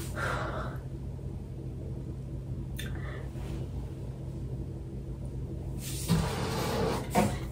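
Steady low hum in a small room, with a few brief knocks and rustles: one about three seconds in and two louder ones near the end.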